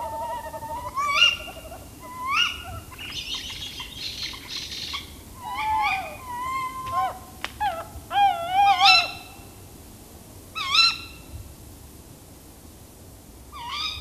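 Tawny owls calling in alarm: many overlapping calls, long wavering ones and short sharp rising ones, thinning out after about 11 seconds, with a last call near the end.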